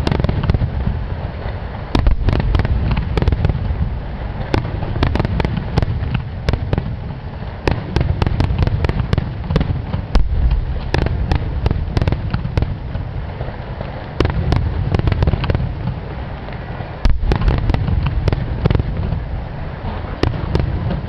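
Rapid-fire fireworks (renpatsu, starmine-style): many shells bursting in quick succession, sharp cracks over a heavy, continuous rumble, with louder surges about 2 seconds in, around 14 seconds and again around 17 seconds.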